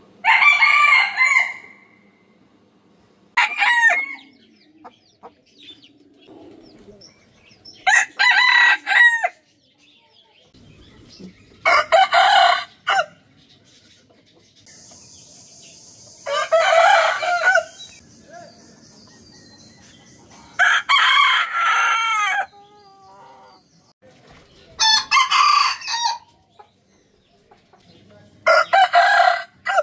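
Roosters crowing, about eight crows in turn roughly every four seconds, each a loud call of one to two seconds; one short crow comes early on. A steady hiss sits under the calls for a few seconds in the middle.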